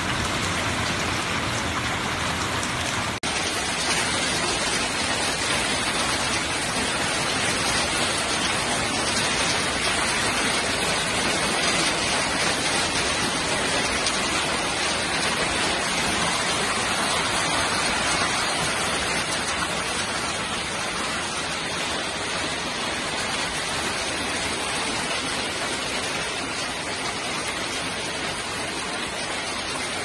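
Hail and rain pelting down in a dense, steady hiss of countless small impacts. The sound changes abruptly about three seconds in.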